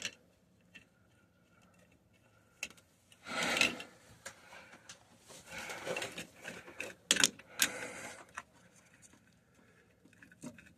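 Scattered clicks and short scraping sounds of a hand tool turning the metal band clamps tight on a rubber Mission drain coupling.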